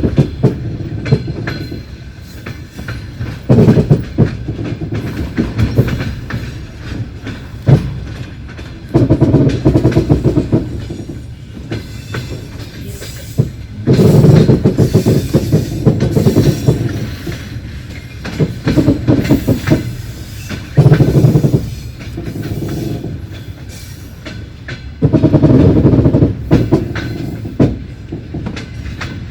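Passenger train wheels clattering over rail joints and switches, heard from inside the carriage: a steady rumble broken by irregular loud bursts of clatter, about seven in all.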